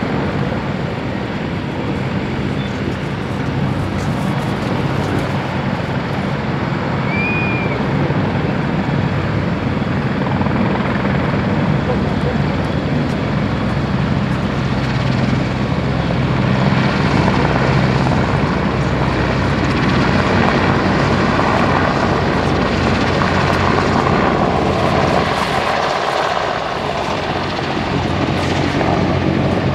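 MCH-101 (AgustaWestland AW101) three-engine helicopter making a rolling takeoff, its engines and rotor running steadily as it runs along the runway and lifts off. The sound grows louder about halfway through.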